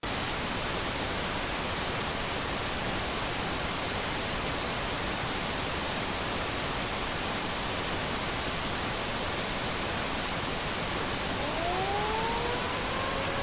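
Steady static hiss, like a dead broadcast channel, cutting in suddenly. About two seconds before the end a siren winds up under it, rising in pitch and then holding.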